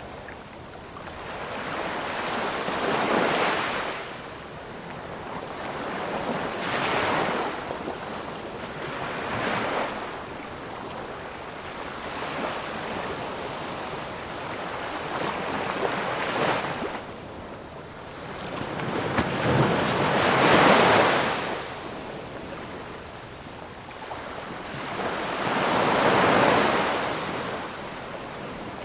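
Ocean waves breaking on a shore, each surge swelling and washing out every few seconds, the strongest around twenty and twenty-six seconds in.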